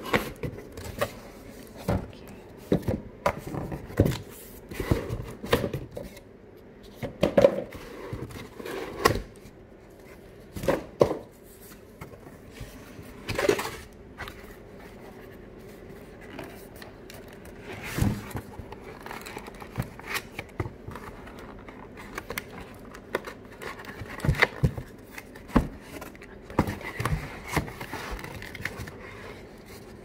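Cardboard boxes and flaps being pulled and shifted inside a packed shipping carton: irregular knocks, scrapes and rustles of cardboard against cardboard.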